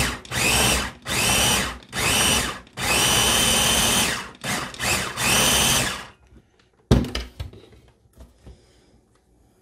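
Ninja electric food chopper's motor pulsed in short bursts, chopping tomatoes, cilantro and peppers: about seven whirs over six seconds, the middle one longest. It is followed by a single knock about a second later.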